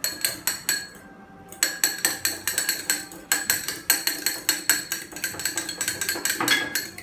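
Fork beating a raw egg in a dish: rapid, even clinks of the fork against the dish, several a second, with a short pause about a second in.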